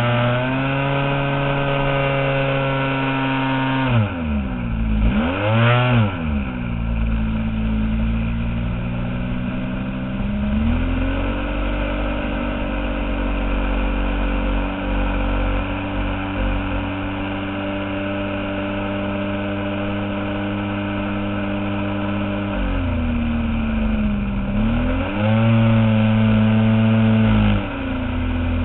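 Engine and propeller of a giant-scale RC airplane running in flight, its pitch swooping down and back up about four to six seconds in, then holding steady for a long stretch before dipping and rising again near the end.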